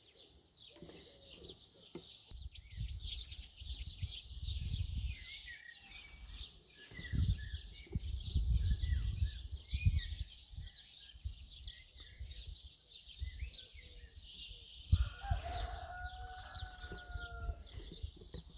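Small birds chirping continuously in a dense chorus, with low gusts of wind rumbling on the microphone. About fifteen seconds in, a rooster crows once, a held call lasting about three seconds.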